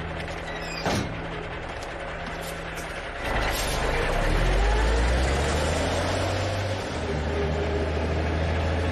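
A truck engine idling, with a sharp bang about a second in; about three seconds in the engine revs up, rising in pitch, then settles into a steady run as the truck drives off.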